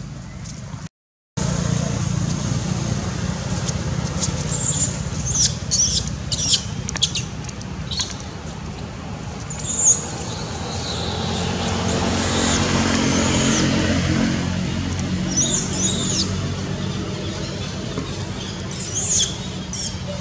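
Baby long-tailed macaque giving short, high-pitched screams again and again as its mother rejects it during weaning, over a steady low rumble.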